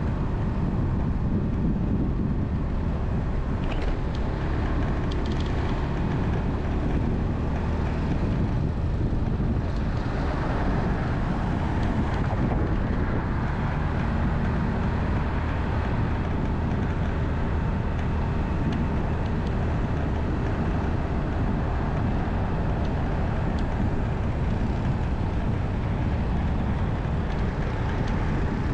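Steady road and wind noise from a moving vehicle, low and rumbling, with wind blowing across the microphone.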